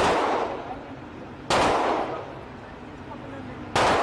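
Three single shots from an AK-pattern rifle, fired about one and a half to two seconds apart, each ringing out with a long echo.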